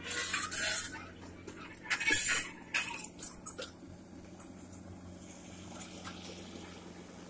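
Komatsu PC45MR mini excavator's diesel engine running with a steady low hum. Several short, sharp clinking noises come in the first four seconds, and after that only the engine's drone goes on.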